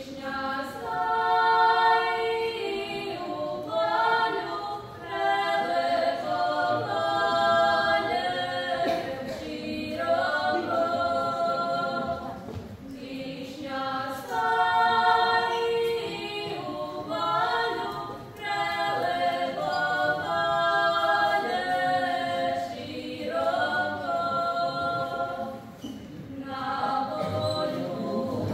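Women's voices singing a Zagorje folk song from Bistra in harmony, unaccompanied, in long phrases with short breaks between them.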